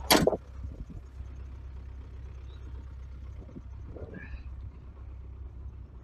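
MTZ-80 tractor's diesel engine running with a steady low drone, heard from inside the cab as it drives. A single loud clunk right at the start.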